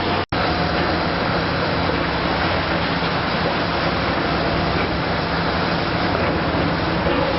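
High-reach demolition crawler excavator running steadily: a continuous diesel engine hum under a dense wash of noise. The sound drops out for an instant shortly after the start, then picks up again with a slightly different hum.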